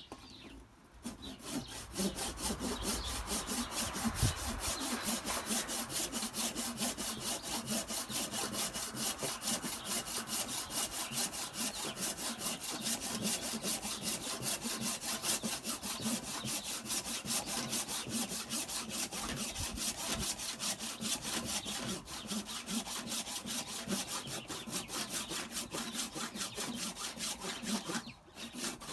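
Handsaw cutting a notch into a wooden spoon blank: a steady rhythm of back-and-forth strokes that starts about a second in and pauses briefly near the end.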